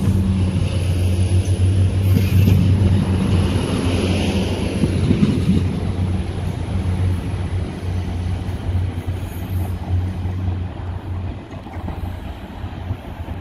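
Transport for Wales Class 175 diesel multiple unit's engines running with a steady low drone that fades gradually.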